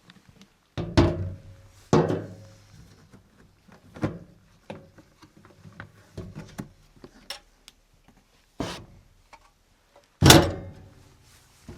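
Several heavy thuds with short ringing decays, about six over a dozen seconds, the loudest near the end.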